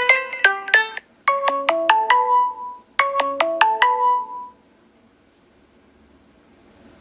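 Samsung Galaxy S7 Edge stock ringtone: a tune of short notes that decay quickly, played in quick phrases that step down in pitch, two of them after the end of a faster figure. It stops about four and a half seconds in.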